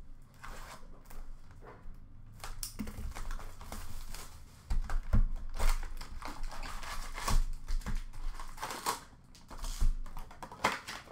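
A sealed box of trading-card packs being unwrapped and its packs handled: irregular crinkling and rustling of plastic and paper wrapping with quick taps and clicks of cardboard. The handling is busiest and loudest from about five seconds in to about nine seconds.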